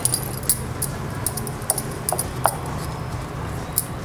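Dough being pressed flat and rolled out with a wooden rolling pin on a wooden board, with a handful of sharp, light clicks and knocks scattered through it, over a steady low hum.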